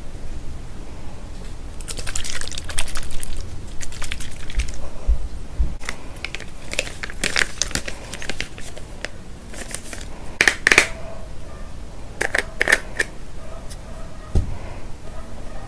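Plastic skincare packaging crinkling and rustling in the hands, with light clicks and taps from plastic bottles and a cream jar being handled. It comes in irregular bursts, the loudest about two-thirds of the way through.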